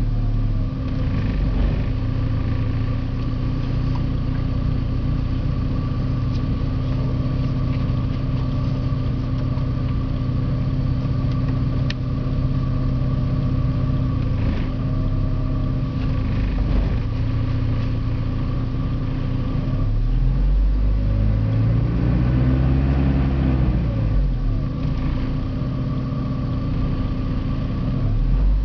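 Porsche 951 (944 Turbo) turbocharged 2.5-litre four-cylinder idling roughly, its idle wavering unevenly. About two-thirds of the way in, the revs rise and fall once.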